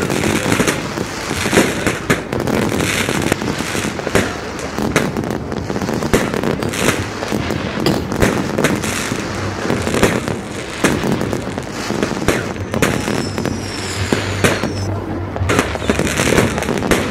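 Fireworks going off in quick succession: a dense run of bangs and crackling bursts, with a few falling whistles about two-thirds of the way through.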